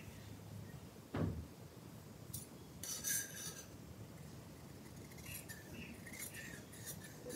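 Large tailoring scissors cutting blouse fabric: quiet snips and rustles of the blades through the cloth, with a burst of cutting around three seconds in and a dull thump about a second in.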